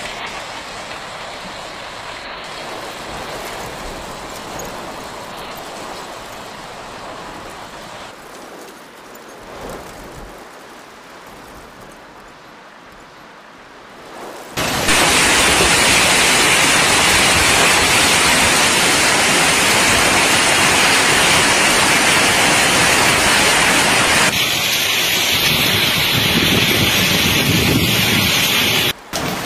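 Hail and heavy rain pelting down on streets and parked cars, a dense steady hiss. It gets much louder about halfway through.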